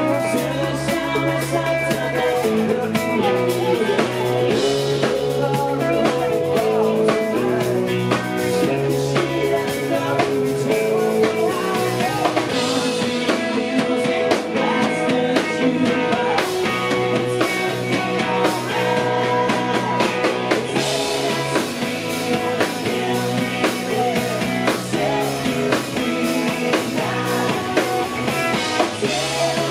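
Live rock band playing a song: a man singing lead over two electric guitars, bass guitar and a drum kit keeping a steady beat.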